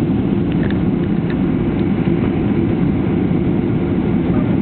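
Steady, even cabin noise of an airliner, a low rumble of engines and airflow heard from inside the passenger cabin.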